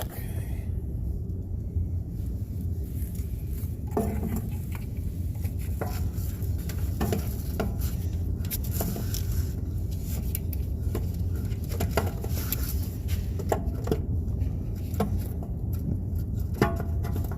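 Scattered metallic clinks and knocks from tools and a replacement starter motor being handled and fitted into place under a pickup truck, over a steady low hum.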